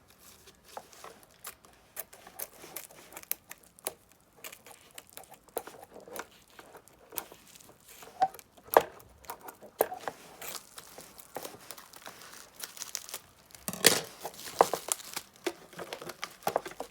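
Handling noise: rustling, crinkling and scattered light clicks and taps, with a denser burst of rustling about fourteen seconds in.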